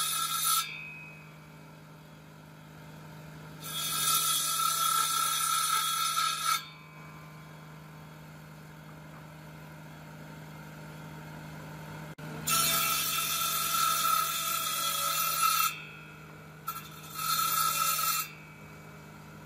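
A power tool working wood in sharp-edged bursts of one to three seconds: three long runs and a short blip, separated by quieter stretches where a steady low hum goes on.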